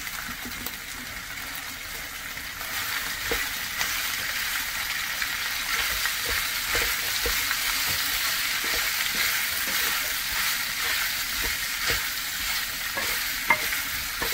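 Boiled beef tripe sizzling in oil and tomato paste in a frying pan while it is stirred with a spoon, which knocks lightly against the pan now and then. The sizzle grows louder a couple of seconds in.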